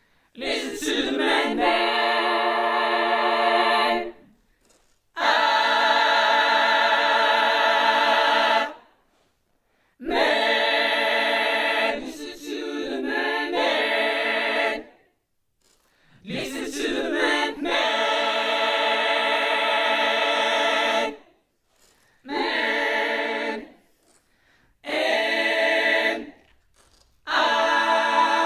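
Layered a cappella vocal harmonies sung as long held chords, in about seven phrases of a few seconds each with short pauses between.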